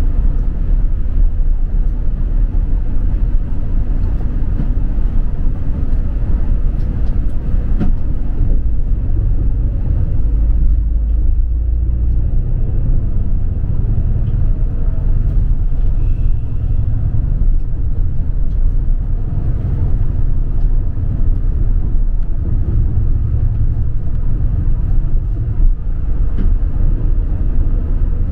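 Steady low rumble of a city bus in motion, heard from inside the cabin: engine and road noise while cruising.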